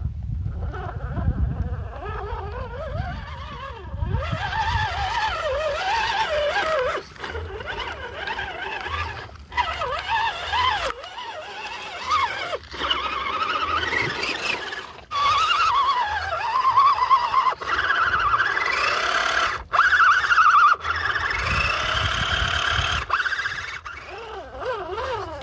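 The electric motor and gearbox of an RGT EX86100 V2 RC crawler whining, the pitch rising and falling as the throttle is worked through mud and water. The whine breaks off and picks up again abruptly several times.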